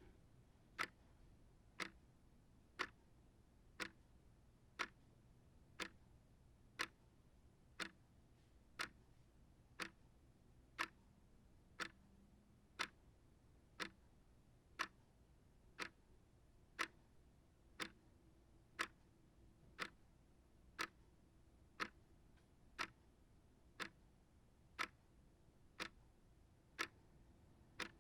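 Small shelf clock ticking steadily, about one crisp tick a second.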